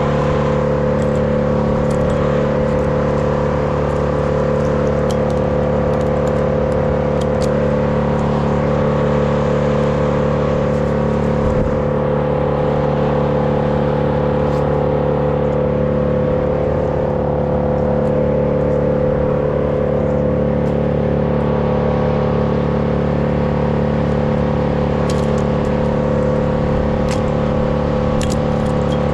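An engine running at a constant speed: a steady drone with no change in pitch, and a few faint ticks near the end.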